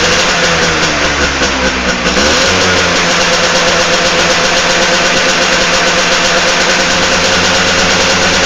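Two-stroke motorcycle engine built on a bored-out Suzuki RC100 block, running steadily near idle, with a brief dip in pitch about two seconds in.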